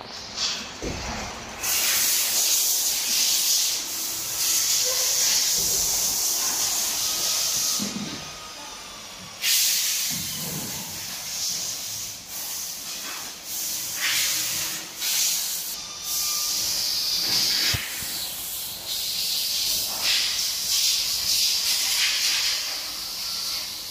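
A strong, high-pitched hiss of rushing air, running in stretches of several seconds that cut out briefly now and then.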